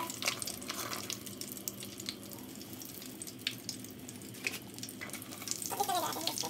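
Hot oil sizzling steadily with many small crackling pops as filled pastry parcels deep-fry in a pot.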